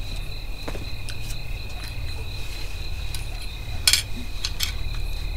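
Crickets chirring steadily, with a low hum underneath and a few soft clicks, the sharpest one about four seconds in.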